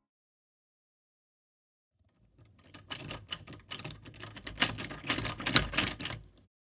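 Round metal doorknob being turned and rattled: a quick run of metallic clicks and jangles that starts about two seconds in, grows louder, then stops suddenly.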